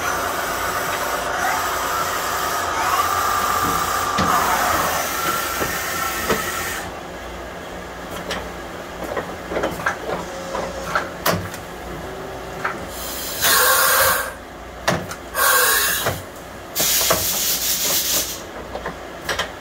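Shizuoka Millmaster B-12V650 vertical machining center running: a steady hiss of air with a whine that shifts in pitch for the first six seconds or so, then quieter with scattered clicks, and three short loud blasts of hissing air in the second half.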